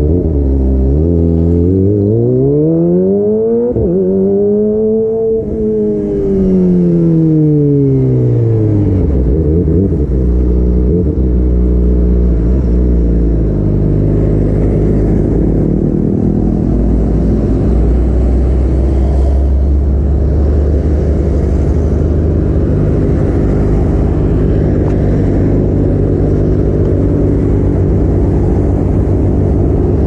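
Kawasaki ZX-25R's 249 cc inline-four engine through an aftermarket DX Generation Pro Race exhaust. The engine note climbs smoothly and falls back over the first nine seconds or so, then runs steadily at low revs.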